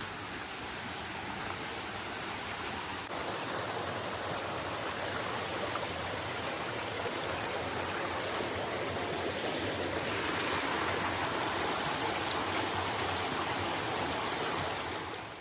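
Stream rushing steadily over rocks: a continuous, even wash of running water.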